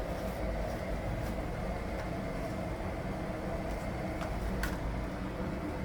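Washing machine running: a steady low rumble and hum with a few faint clicks.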